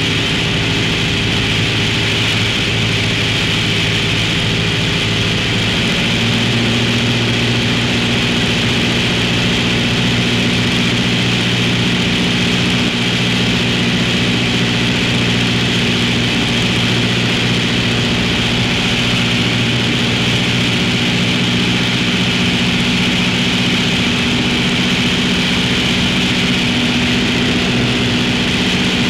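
Piper Cherokee's piston engine and propeller droning steadily in cruise, heard from inside the pilot's headset ear cup. About six seconds in, the engine note steps up slightly and then holds there.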